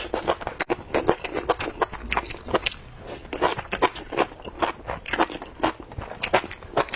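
Close-up eating sounds: chewing, with a rapid, irregular run of mouth clicks and smacks, several a second.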